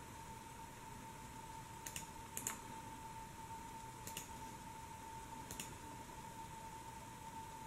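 A handful of sharp computer pointer-button clicks, two of them in quick succession about two and a half seconds in. Under them a steady high-pitched whine runs without change.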